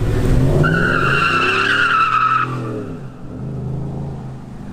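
Car accelerating hard, its tyres squealing for about two seconds while the engine revs climb and then ease off.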